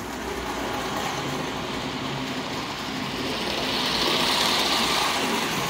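O-scale tin model train running along its track, a steady mechanical running sound that grows louder from about three and a half seconds in.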